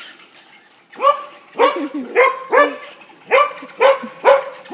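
Goldendoodle barking repeatedly, about seven sharp barks spaced roughly half a second apart, as it chases a remote-control toy truck.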